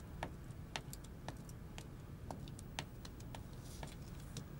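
Faint, irregular light clicks, a few a second, over quiet room tone.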